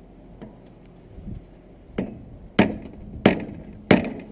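Metal tool knocking against a brass water-heater valve while working a pressed-in part loose: a couple of light taps, then four sharp knocks about two-thirds of a second apart in the second half.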